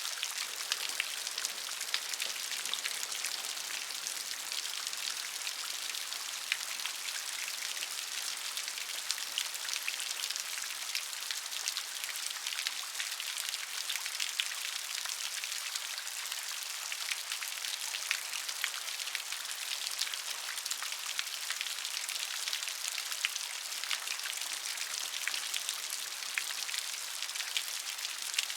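Steady rain falling, an even hiss sprinkled with many small, distinct drop hits.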